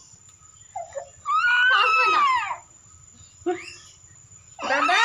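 Baby wailing in high-pitched cries: a long one about a second in that falls away at its end, a short one just past the middle, and another starting near the end.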